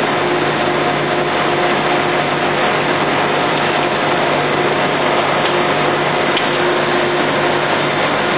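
Steady drone of factory machinery around a solar-panel framing line: an even noise with a constant low hum, unchanging throughout.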